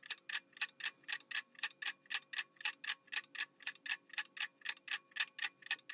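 Ticking-clock sound effect used as a quiz countdown timer: a steady run of quick, even ticks, about five a second.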